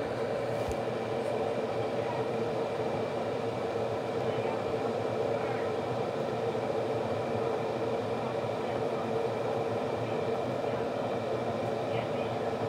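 Glass electric kettle heating water: a steady hiss as small bubbles form on the heating plate before the boil.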